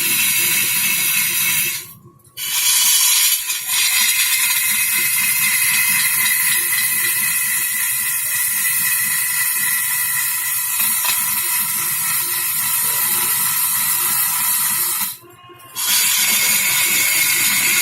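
Wood lathe running as a turning tool cuts the spinning wood: a steady hiss of shavings with a high machine whine. It cuts out briefly twice, about two seconds in and again near the end.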